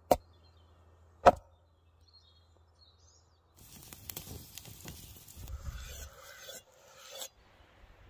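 Two sharp chopping strikes about a second apart, a cleaver meeting a tomato on a wooden board. Then, from about three and a half seconds in, a wood campfire crackling and sizzling under roasting peppers, cutting off abruptly about a second before the end.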